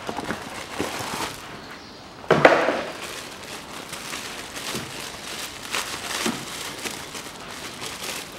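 Clear plastic wrapping crinkling and rustling as a new panel air filter is handled and unwrapped by hand, with a louder rustle about two and a half seconds in.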